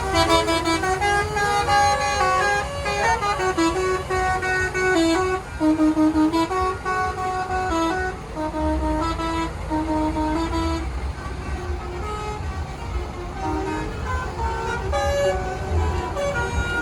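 A bus's telolet horn, a set of musical air horns, playing a quick tune of short notes that step up and down, over the low rumble of the bus's engine.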